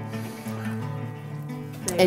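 Soft background music with steady held notes.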